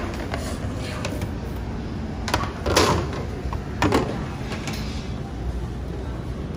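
Plastic cafeteria tray being handled and set down on a stainless-steel tray rail: a few sharp knocks and clatters, the loudest about three seconds in, over a steady low background hum.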